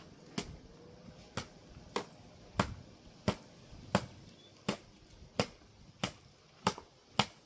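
Repeated sharp knocks at a steady pace, about three every two seconds, as a milk carton is struck over and over to get it open.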